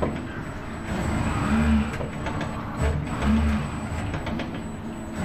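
ABB industrial robot arm's motors whirring as it sweeps the paint brush back and forth in repeated strokes. The low whir swells and fades about every two seconds.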